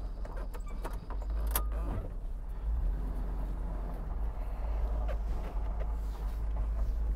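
The 1992 GMC TopKick's 366 tall-deck V8 with throttle-body injection running, heard from inside the cab as a steady low hum. Clicks and rattles come from the cab in the first two seconds, with one sharp click about a second and a half in.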